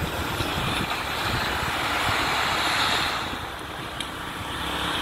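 Wind rushing over the microphone and the engine of a Honda ADV155 scooter running as it rides uphill. The noise eases somewhat a little past halfway, then builds again.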